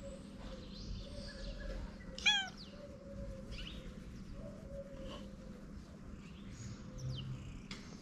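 A tabby cat gives one short chirping meow a little over two seconds in, over faint bird chirps and low street background.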